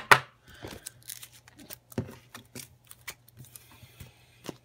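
Stacks of trading cards in plastic sleeves being handled: scattered crisp clicks and rustles of the sleeves, a sharp tap at the very start, and a brief sliding hiss about three and a half seconds in.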